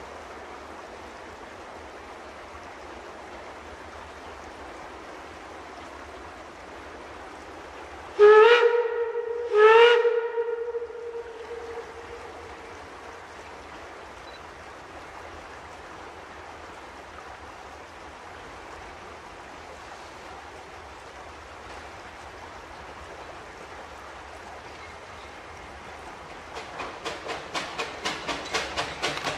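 Steam whistle of WW&F No. 9, a two-foot-gauge steam locomotive, sounding two blasts about eight seconds in, each sliding up in pitch as it opens and then dying away with an echo. Near the end the locomotive's exhaust comes in as quick, regular chuffs that grow louder as it approaches working steam.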